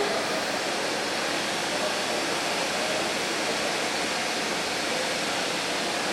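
Steady hiss of steam from a steam locomotive standing in the platform before departure, even and unbroken with no chuffing. Faint voices sit underneath.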